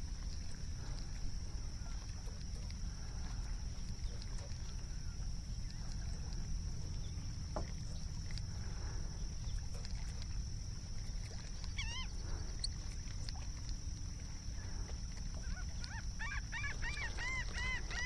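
Seabirds calling over a steady low rumble: one call about two-thirds of the way through, then a quick run of repeated rising-and-falling calls near the end.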